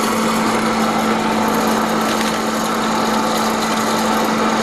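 Freshpop popcorn vending machine running with a loud, steady hum and whir as it pops and dispenses popcorn into a paper bag.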